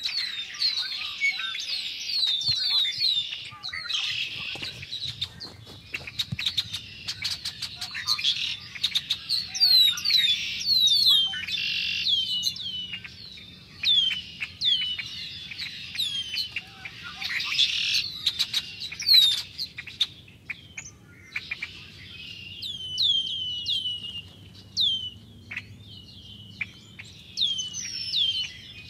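Large flock of red-winged blackbirds calling and singing together: a dense, continuous chorus of many overlapping short, falling chip and whistle notes.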